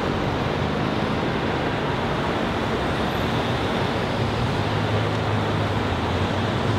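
Steady rumble and hiss of transport noise, an even roar with a low hum underneath that holds at a constant level.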